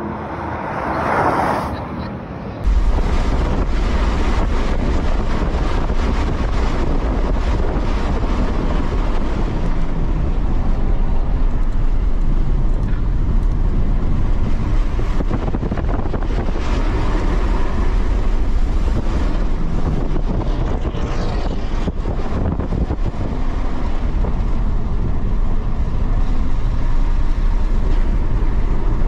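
A car going past on a racetrack, heard from trackside, swells briefly. About three seconds in, the sound jumps to the inside of a Tesla Model 3 Performance lapping at speed: a steady, heavy low road rumble with tyre and wind noise.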